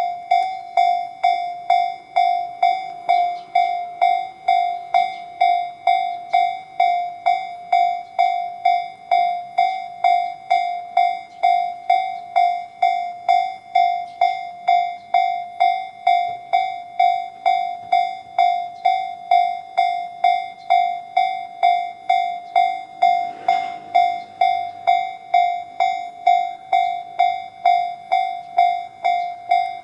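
Tobu Railway level-crossing alarm sounding Tobu's 'C' tone: electronic dings repeating evenly at about two a second while the crossing is closed for an approaching train. A brief rush of noise rises under the dings about 23 seconds in.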